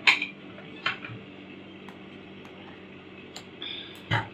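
Four sharp clicks and knocks from handling fabric at a sewing machine, spread over about four seconds, over a faint steady hum.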